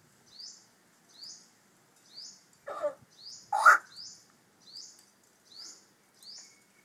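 A mimicking pet bird gives two short, noisy, sneeze-like bursts about three seconds in, the second louder. Behind it a short high chirp repeats about once a second.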